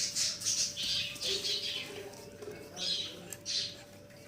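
Bird chirping in a short series of high-pitched calls, with a pause in the middle, over a faint steady hum.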